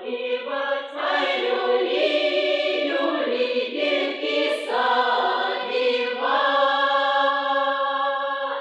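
A group of women singing a Russian Kupala folk song unaccompanied, several voices in harmony on long held notes. The last chord is held from about two-thirds of the way in and dies away at the very end.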